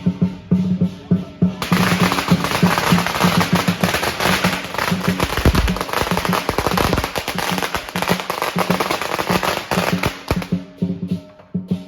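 A long string of firecrackers going off in a dense, rapid crackle of pops, starting about a second and a half in and stopping near the end. Lion dance drum and cymbals keep a steady beat under it.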